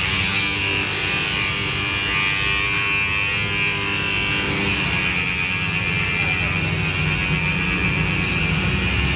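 Handheld electric body massager running steadily as it is worked over a person's back, a constant motor buzz with a high whine. Music plays alongside.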